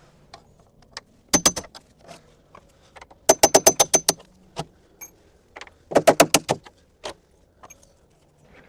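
Three short bursts of rapid, sharp metallic clicking, about ten clicks a second: four clicks about a second and a half in, a longer run of about nine just after three seconds, and about seven near six seconds.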